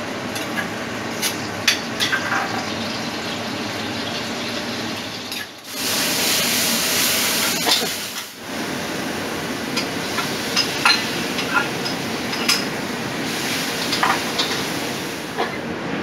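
Seafood frying in a wok with yellow chili paste: a steady sizzle, with the metal spatula clinking and scraping against the wok many times. The sizzle turns louder for a couple of seconds midway.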